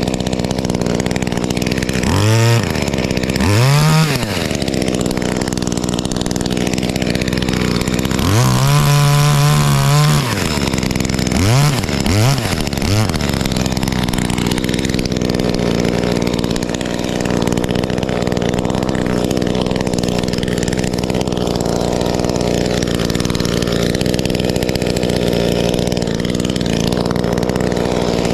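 Knockoff Echo 2511T top-handle two-stroke chainsaw running throughout, with several short revs, the clearest about 2, 4, 9 and 12 seconds in.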